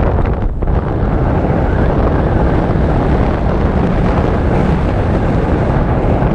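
Strong wind buffeting the microphone in flight under a paraglider: a loud, steady, low rumbling rush with no letup.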